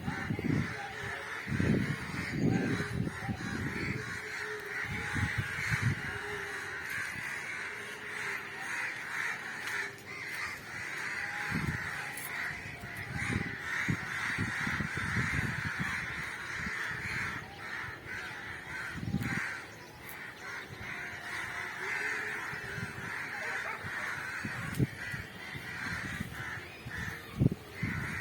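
A continuous chorus of bird calls, with irregular low rumbles on the microphone.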